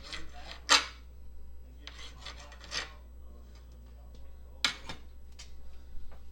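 Kitchen utensils and cookware being handled: a few sharp clinks and knocks, the loudest under a second in, with a short scraping rub around two to three seconds in, over a steady low hum.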